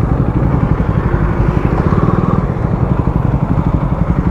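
Motorcycle engine running steadily as it is ridden, heard from on the bike, its rapid, even exhaust pulses carrying most of the sound.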